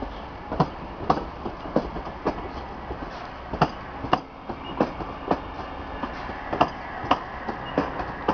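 Stadler FLIRT electric multiple unit EN75 passing close by, its wheels clicking sharply over track joints about twice a second, often in quick pairs, over a steady rumble.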